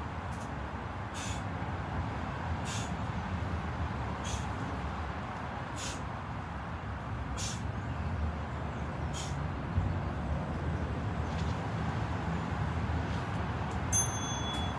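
Steady low background rumble, with a faint short swish about every one and a half seconds in time with bird-dog exercise repetitions. Near the end a brief electronic beep sounds, the interval timer marking the end of the work period.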